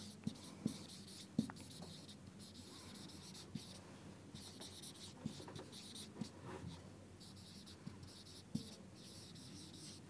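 Marker pen writing on a whiteboard: faint, irregular scratchy strokes, with a few short soft knocks among them.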